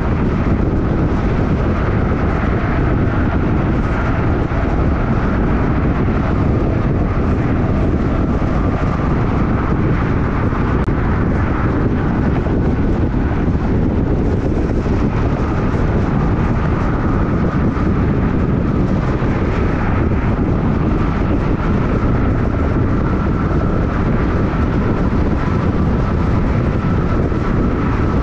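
Steady road and tyre noise of a car cruising at freeway speed, with a faint steady whine above it.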